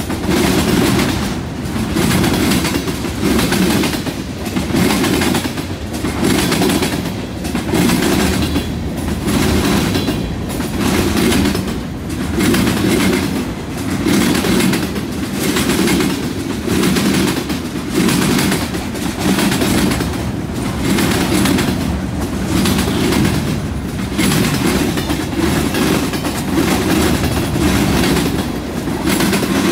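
Freight cars of a passing train rolling by close to the track, steel wheels clacking and rumbling on the rails in an even rhythm of roughly one beat a second.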